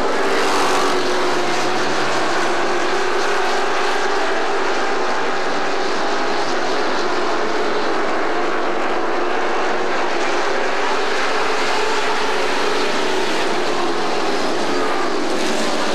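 A field of asphalt pro racing trucks' crate V8 engines running at speed around the oval: a steady, loud drone whose pitch rises and falls slowly as the trucks pass and lift and accelerate through the turns.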